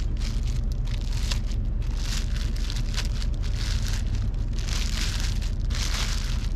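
Plastic wrap and bubble wrap crinkling and rustling as they are pulled off a new fishing rod, in irregular crackly bursts over a steady low hum.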